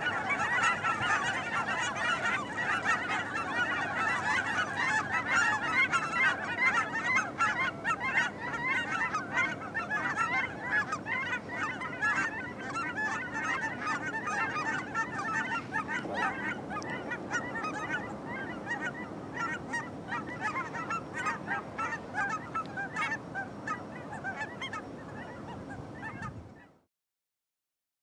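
A large flock of geese honking, many calls overlapping in a continuous din. It grows gradually quieter in the second half and cuts off shortly before the end.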